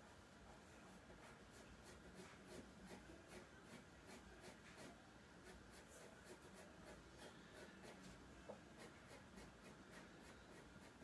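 Black drawing pen scratching on drawing paper in quick short strokes, about three or four a second; faint.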